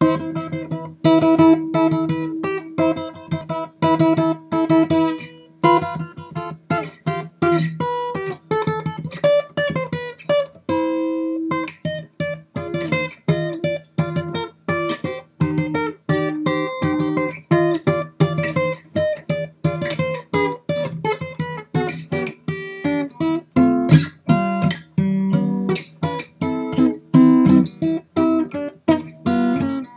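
Background music on acoustic guitar: a steady stream of plucked notes with some strumming.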